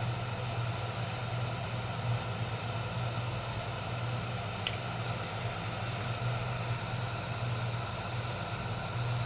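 A steady low machine hum with a faint hiss, and one short sharp click about halfway through.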